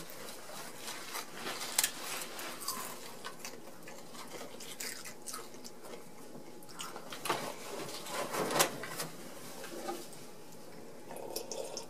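Children biting and crunching Lay's potato chips, with scattered crisp crunches and quiet chewing.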